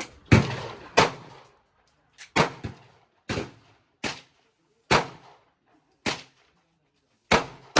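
Pistol gunfire, most likely a 9 mm Glock: about a dozen single shots at an irregular pace, some in quick pairs, each sharp crack followed by a short echo.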